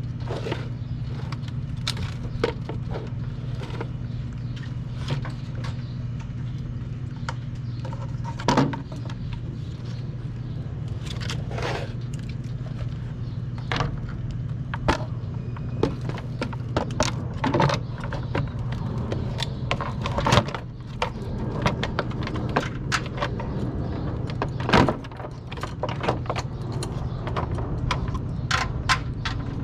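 Irregular clicks, knocks and rattles of car parts and tools being handled during reassembly, over a steady low hum.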